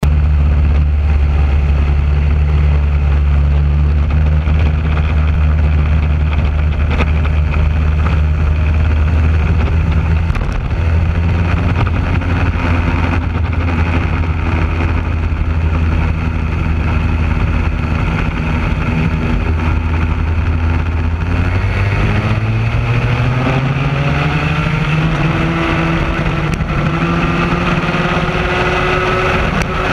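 Raket-class racing kart's two-stroke engine heard close up, running at a steady low speed, then accelerating from about two-thirds of the way through, its pitch rising over several seconds before holding higher.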